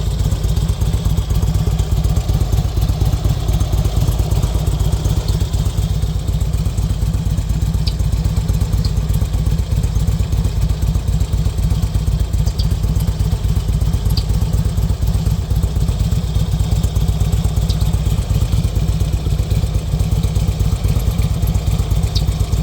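Harley-Davidson Road King Classic's air-cooled V-twin engine idling steadily with a deep, even pulsing rumble, and a few faint light ticks on top.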